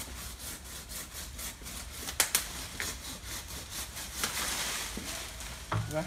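Pole pruning saw cutting a mango tree branch: a run of short, repeated saw strokes, with two sharp cracks just over two seconds in.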